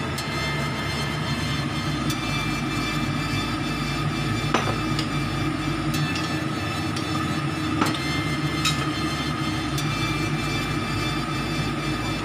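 Steady mechanical drone with a low rumble and a faint hum, with a few sharp clicks about four and a half and eight seconds in.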